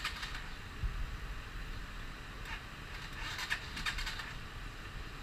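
Motorcycle engine idling with a steady low rumble, overlaid twice by short bursts of rapid clicking and rattling, at the start and about halfway through.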